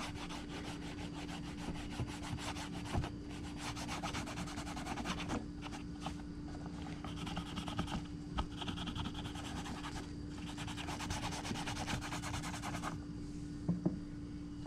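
Quick, steady rubbing strokes on a leather knife sheath as paint is worked into the leather and its stitching. The rubbing stops near the end.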